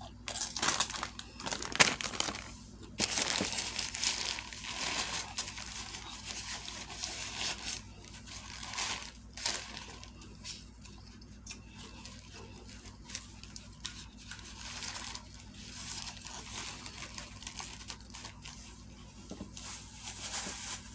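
Paper sandwich wrapper crinkling and rustling as it is handled close to the microphone, in irregular bursts that are loudest in the first five seconds.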